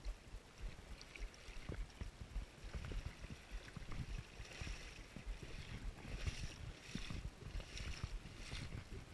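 Wading through shallow loch water and stepping out onto a stony shore: sloshing splashes, then crunching footsteps on gravel. A low rumble of wind on the microphone runs underneath.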